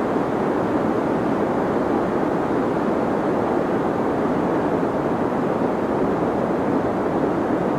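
Deep white noise for sleep: a steady, unchanging rushing hiss with its weight low and muffled, little top end.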